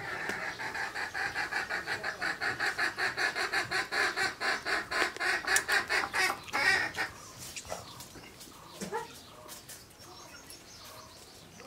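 A chicken clucking in a fast, even run of calls for about seven seconds, then stopping.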